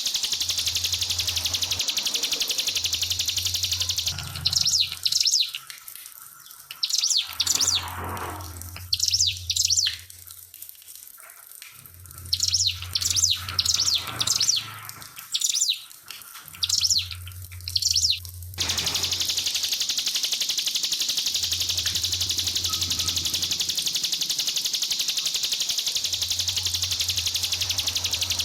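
Trickling water, giving way about four seconds in to a ciblek (prinia) singing in short, rapid bursts of high chirps, about seven bursts over some fourteen seconds. The water trickle returns near the end.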